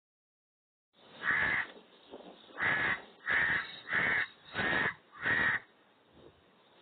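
Raven cawing six times: one caw about a second in, then a quick run of five.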